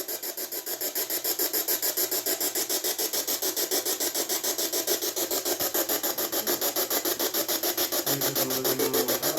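Ghost-hunting electronic device giving out fast, even pulses of static, about eight a second.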